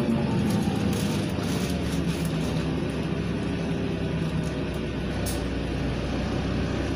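Inside a LiAZ 5292.67 city bus under way: a steady low engine hum with tyre and road noise in the passenger cabin, and a few light rattles.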